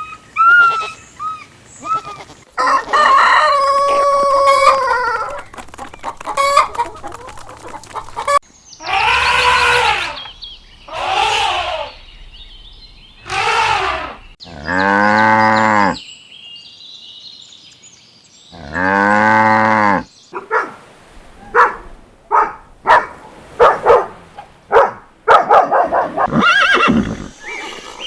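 A string of farm animal calls: a rooster crowing and chickens clucking, with two longer, lower-pitched calls in the middle and a run of short, quick clucks near the end.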